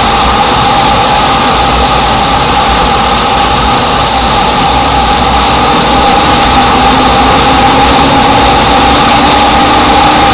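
A machine or motor running with a loud, steady drone and a constant whine.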